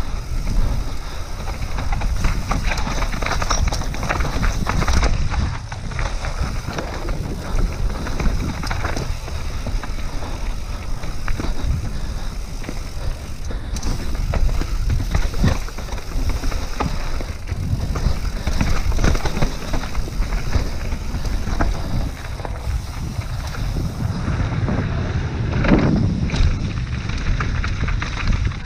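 Mountain bike descending a rough trail: wind rushing over the microphone with tyres rolling over dirt and rocks and the bike's chain and frame rattling in quick, irregular knocks over bumps, with a louder burst near the end.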